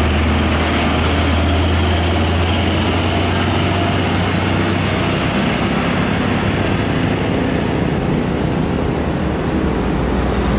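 Heavy diesel trucks passing on a highway, with a deep steady engine drone over tyre and road noise. The drone is strongest at first and eases about halfway through.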